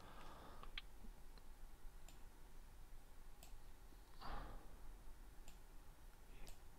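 A few faint, sharp computer mouse clicks at uneven intervals while table column borders are dragged, with a short soft rush of noise about four seconds in.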